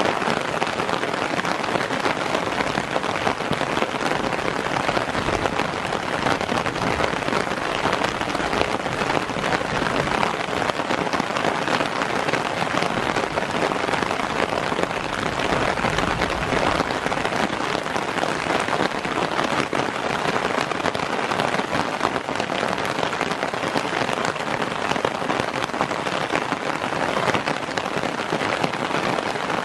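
Steady heavy rain falling on the tarp shelter over the tent and the surrounding plants, an even dense patter of drops with no break.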